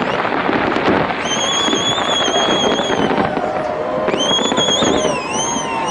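Fireworks display crackling and popping densely and without a break, with long, high wavering whistles above it about a second in and again from about four seconds.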